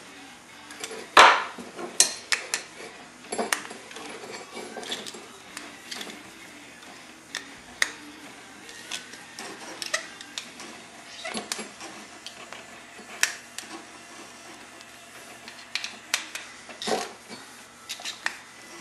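Metal clicks, clinks and taps from a brake caliper, its pads and small hand tools being handled while the pads and adjuster screws are fitted. The taps come at an irregular pace, the loudest about a second in.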